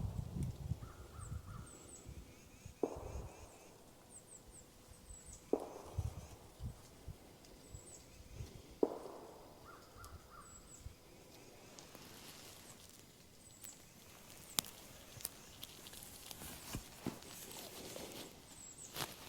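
Faint outdoor ambience with short high bird chirps and a brief repeated bird trill, broken by three sharp knocks about three seconds apart in the first half and scattered faint clicks later.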